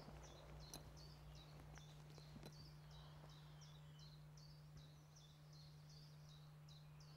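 Faint songbird singing a short high note over and over, about twice a second, over a faint steady low hum.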